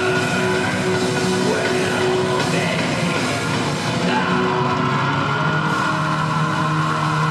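Live metal band playing: distorted electric guitars holding sustained chords over bass and drums.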